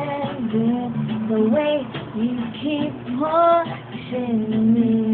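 Wordless sung notes from a singer with a sore throat, sliding and bending between pitches over the song's backing music, ending on a long held note.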